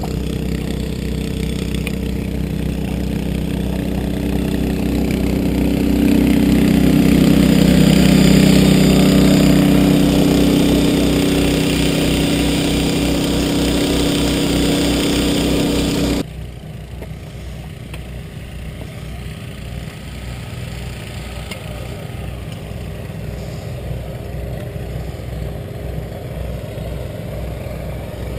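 An engine running steadily, growing louder for a few seconds and then cutting off abruptly about sixteen seconds in, after which a quieter engine sound with a pulsing low rumble carries on.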